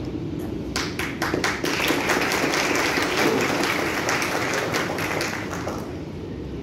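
Audience applauding: a few scattered claps about a second in build into steady applause, which fades out near the end.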